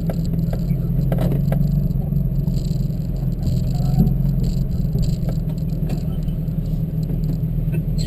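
Porsche 718 4.0-litre flat-six engines at a slow crawl, a steady low drone heard from inside the cabin of the following Boxster GTS, with a light knock or two.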